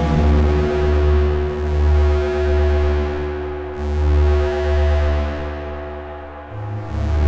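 SOMA Lyra-8 drone synthesizer playing a dense, distorted drone through its overdrive, with the delay's self-modulation switched on. Many held tones sound together over a deep bass tone that swells and dips in slow, uneven waves.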